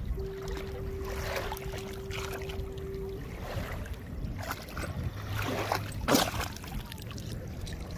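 Shallow water splashing and sloshing in irregular strokes as a dog paws and digs at a rock on the bottom, with one louder splash about six seconds in. A steady tone also holds for about three seconds near the start.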